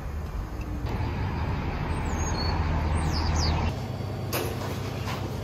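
Steady road and engine noise from inside a moving van, with a few high bird chirps partway through. About two-thirds of the way in it gives way to quieter indoor room noise with a single sharp knock.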